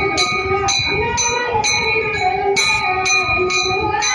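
Temple hand bell rung steadily, about two strokes a second, its ringing tones sustained between strokes, over a group of voices chanting.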